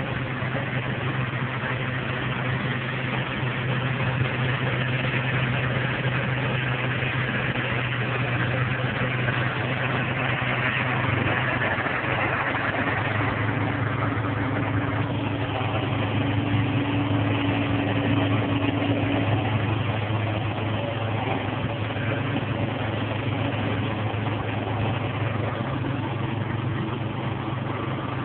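Combine harvester running steadily while harvesting corn: a constant low engine hum under a dense mechanical rushing noise.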